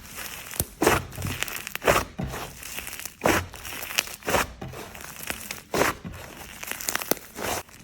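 Slime being squeezed and pressed by hand, giving a run of short crackly squishes, roughly one or two a second.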